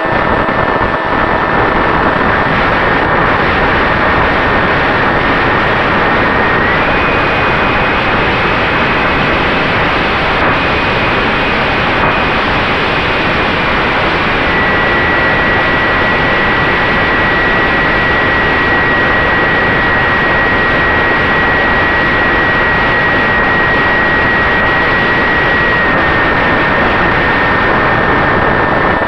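Brushless outrunner motor (Turnigy 3542, 1450kv) spinning an 8x4 propeller on an FX-61 Phantom flying wing in flight: a steady whine over a loud rush of wind. The whine steps up in pitch about seven seconds in as the throttle rises, and drops back about halfway through.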